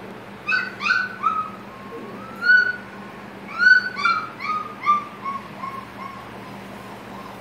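A six-week-old black Labrador retriever puppy whining: about a dozen short, high-pitched whines, the later ones quicker, lower and fainter.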